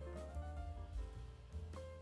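Background music with a strong bass line and a melody of short held notes.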